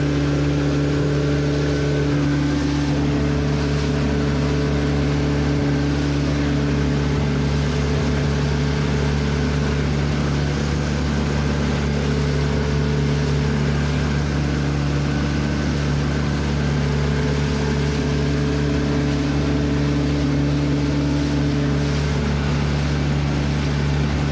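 Outboard motor of a small boat running steadily under way, a constant drone whose pitch wavers slightly now and then.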